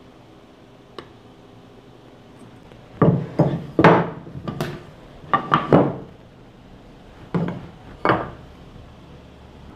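Pine boards being picked up, stood on edge and set against each other on a worktable: a small tick about a second in, then a run of sharp wooden knocks and clunks, about nine in all.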